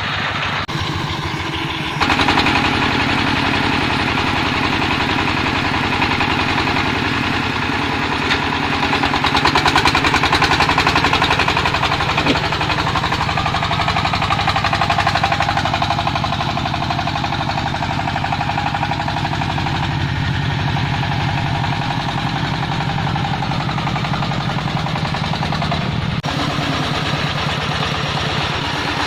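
Single-cylinder diesel engine of a công nông farm truck running steadily. It gets louder about two seconds in and eases back near the end.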